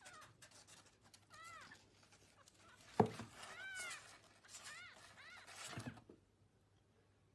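A cat meowing four times in short calls that rise and fall in pitch, with a single loud thud about three seconds in.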